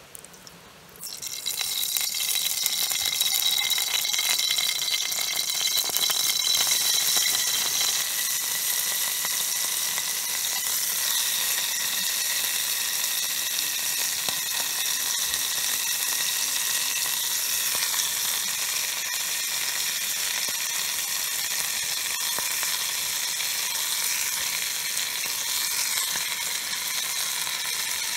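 Food going into hot oil and frying with a loud sizzle. It starts suddenly about a second in, is loudest for the next several seconds, then settles to a steady frying hiss.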